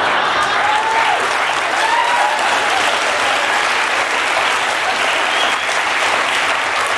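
Studio audience applauding steadily, with a few voices calling out in the first couple of seconds.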